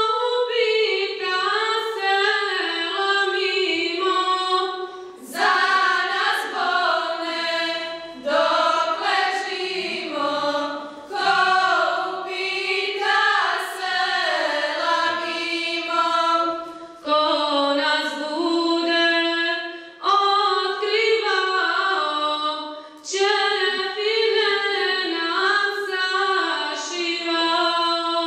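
A choir singing a Bosnian Islamic devotional song (ilahija) a cappella, in phrases of a few seconds with short breaks between them.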